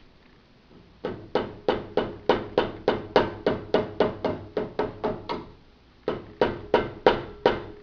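Rubber mallet knocking on the end of a steel frame tube of a Schwinn 430 elliptical, driving it back in so it sits square. About three quick blows a second, a short pause, then five more, with the tube giving a faint ring after each blow.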